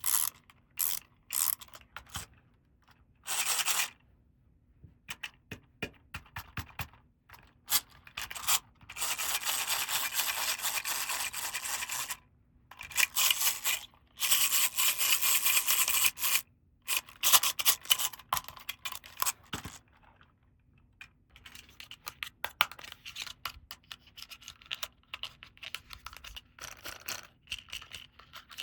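Toy packaging and plastic toy pieces being handled: scattered short rustles and taps, with two longer stretches of steady rasping noise of about three seconds each, the first about a third of the way in and the second just after the middle.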